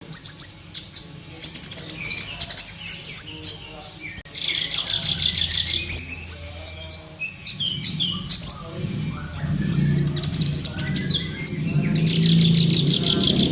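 Olive-backed sunbird (kolibri ninja) singing energetically: high, sharp chirps and quick sweeping notes broken by fast buzzing trills, three of them, the trills lasting one to two seconds each.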